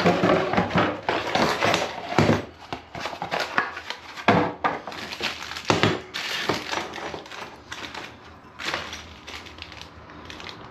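Plastic packaging crinkling and crackling as it is handled, with scattered sharp clicks and rattles of parts, most dense in the first half.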